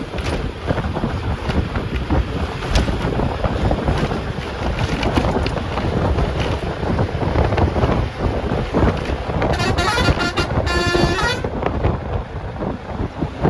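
Bus running on the road, with a steady rumble, wind rush and small rattles. A vehicle horn honks twice in quick succession about ten seconds in.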